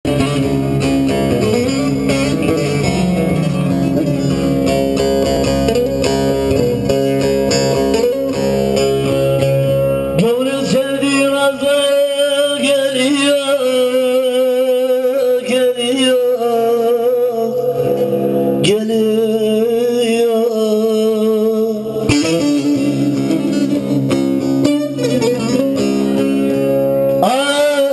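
Live Turkish folk music: a bağlama (long-necked saz) played with electronic keyboard accompaniment. About ten seconds in the low accompaniment thins and a held, wavering melody line takes over.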